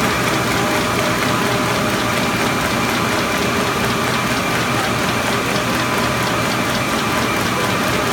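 Paper-finishing line running: a Stahl paper folding machine and a UV inkjet printer's conveyor, a steady mechanical clatter with rapid ticking and a faint steady whine.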